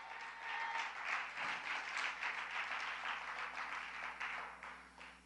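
Congregation applauding: dense clapping that swells within the first second, holds, and dies away just before the end.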